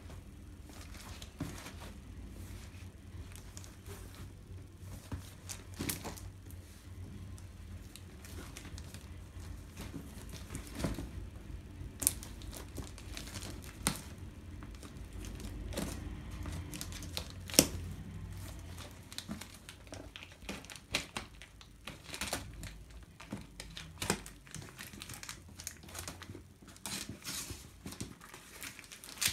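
Plastic courier mailer bag crinkling as it is handled, cut into with scissors and torn open, with many sharp crackles and clicks of the plastic. A low hum sits underneath and fades out about two-thirds of the way through.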